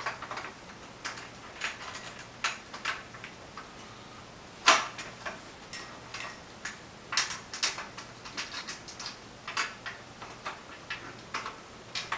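Metal bar and clamp of a Roland MDS-12 drum rack being fitted and tightened by hand: irregular small clicks and knocks, with a sharper knock about five seconds in and a quick run of clicks a few seconds later.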